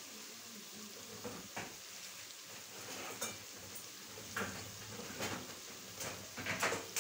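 Spice masala sizzling as it fries in an aluminium pan, with a wooden spatula scraping and knocking against the pan half a dozen times, the loudest strokes near the end.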